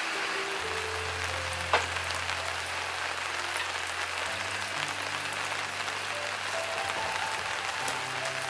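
Background music of slow, sustained notes over a steady hiss, with one sharp knock of a cleaver on a wooden cutting board near the start and a few fainter knocks later.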